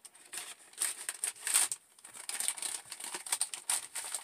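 Plastic MRE heater bag and meal pouch crinkling in irregular rustles as they are handled and propped upright, loudest about a second and a half in.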